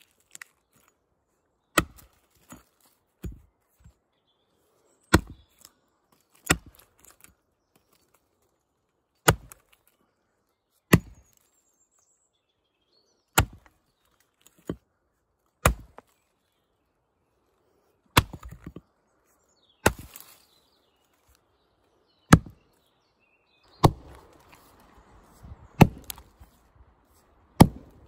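A Tuatahi axe chopping into a log: about a dozen sharp strikes, one every couple of seconds with short pauses. A rustling noise comes in near the end.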